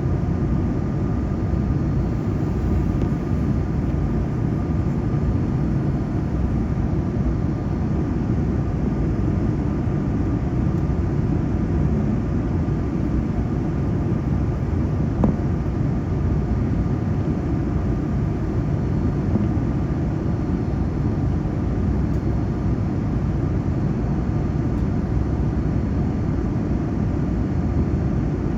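Steady cabin noise inside a Boeing 787 airliner: an even, deep rumble of engines and rushing air with a faint steady whine above it, and one faint click about halfway through.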